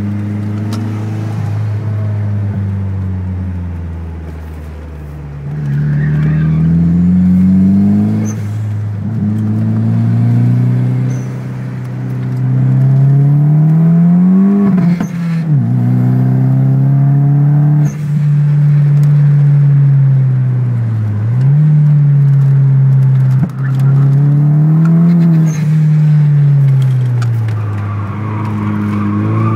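Nissan Silvia S12's engine heard from inside the cabin while lapping a circuit, revving up repeatedly and dropping sharply in pitch at gearshifts and lifts, with a short steady stretch in the middle.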